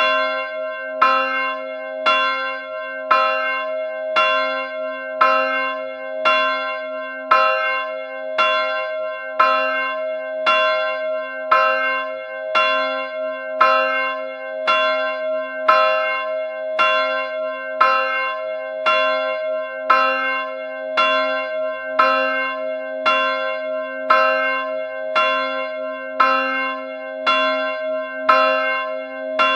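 Church bell tolling, struck evenly about once a second, each stroke ringing on into the next so the hum never dies away.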